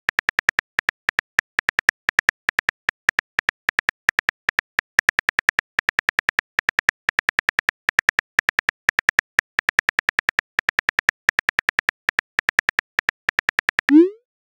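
Phone keyboard tap clicks, about five a second, as a message is typed letter by letter. Near the end comes a short rising swoosh as the message is sent.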